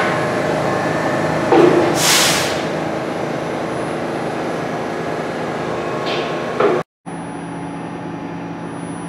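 New York City subway train standing in the station, its equipment humming steadily, with a short sharp hiss about two seconds in and another near seven seconds. Just after the second hiss the sound drops out for a moment, then returns as a steady hum.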